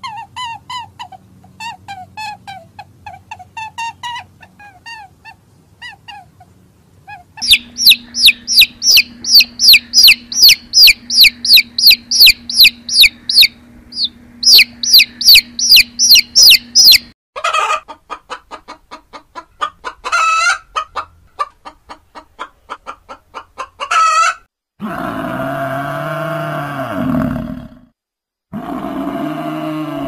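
Chicks peeping: faint chirps at first, then, from about seven seconds in, loud, rapid high peeps, about three a second, for roughly ten seconds. A different series of animal calls follows, and near the end come two long, low calls.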